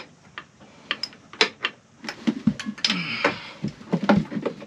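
Irregular metallic clicks and knocks of hand tools working at a sailboat's marine diesel engine while the starter motor is being unbolted, with a short rasping stretch about three seconds in.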